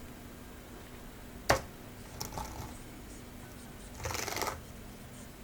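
A few scattered keystrokes on a wireless keyboard: one sharp click about a second and a half in, a couple of light taps just after two seconds, and a short run of clicks around four seconds in.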